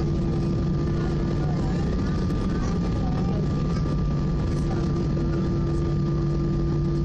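Airbus A319 cabin noise on the landing rollout: its CFM56 engines running at low power, giving a steady hum over a low rumble from the runway as the airliner slows.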